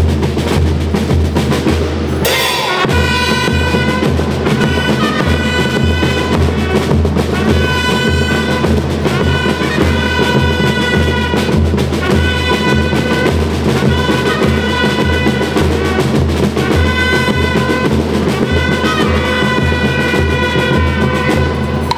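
A school rhythm band playing: bass drum and snare drums keep a steady march beat of about two strokes a second while bell lyres carry a repeating melody. The beat breaks briefly about two and a half seconds in.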